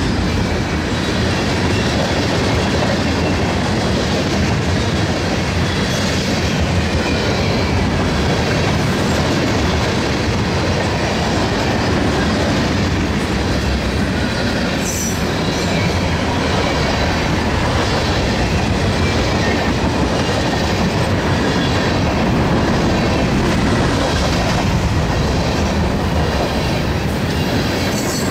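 Freight train rolling past: a steady rumble of steel wheels on rail, with clickety-clack over the rail joints and a brief high wheel squeal about halfway through.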